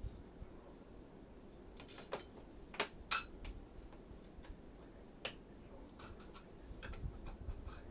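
A few light, sharp clicks and taps at irregular intervals, the sound of small kitchen items such as spice containers and a measuring spoon being handled. The loudest come about three seconds in.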